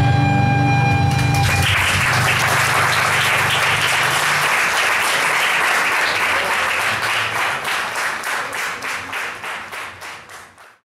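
The final held chord of a recorder and acoustic guitar ensemble, then audience applause breaking out about a second and a half in. The clapping thins into separate claps and fades away near the end.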